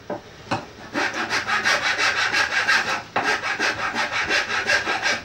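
A hand tool worked back and forth over a curved wooden piece, a scraping stroke on the wood with each pass. After two separate strokes come quick, even strokes about five a second, broken once by a short pause near the middle.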